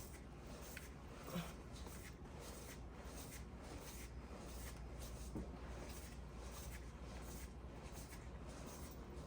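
A rag wiping excess lube off a motorcycle chain: faint, repeated rubbing strokes, with a soft knock about a second in and another about five seconds in.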